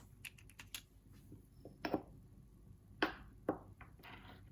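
Pestle crushing tablets in a mortar: a few light clicks at first, then irregular sharp knocks from about two seconds in.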